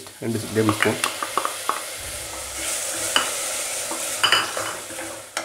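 Wooden spatula stirring and scraping chopped onions frying in oil in an aluminium pressure cooker. A steady sizzle grows louder from about two seconds in, with a few sharp knocks of the spatula against the pan.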